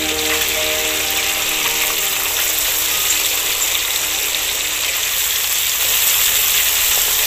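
A steady hiss that grows slightly louder about six seconds in. Background music fades out in the first second.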